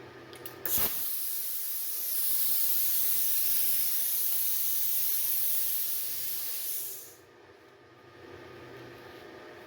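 Plasma cutter torch firing on a 120 V supply: a sharp start, then a loud steady hiss of compressed air and cutting arc for about six seconds that stops quickly when the trigger is let go. The machine's cooling fan runs steadily underneath.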